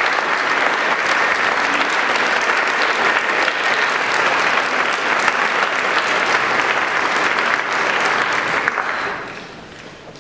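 Audience applause, many hands clapping together, dying away about nine seconds in.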